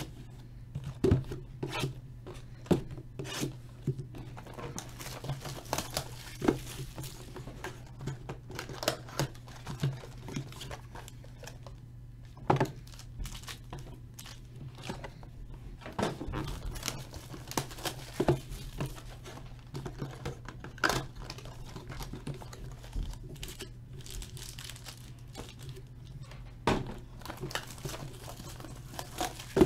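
Hands tearing open cardboard trading-card boxes and handling the wrapped card packs inside: scattered rips, crinkles and taps, over a steady low hum.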